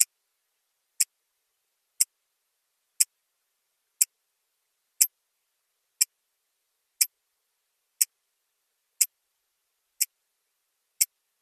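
Wristwatch ticking: crisp, sharp ticks exactly one a second, about a dozen in all, with dead silence between them.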